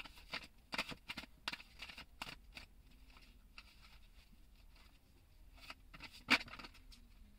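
Tarot cards being handled: faint, irregular small clicks and rustles, thickest in the first couple of seconds, with one sharper click near the end.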